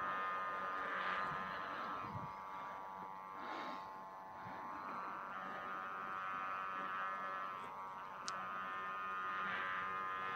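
Guwangan (sendaren), the bowed hummer fitted to a Balinese kaplik kite, buzzing in the wind as a steady drone of several pitches that swells and fades.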